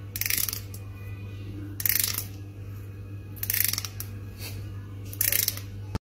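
A fingernail strummed along the teeth of a plastic comb, four short rasping strums each about half a second long, over a steady low hum.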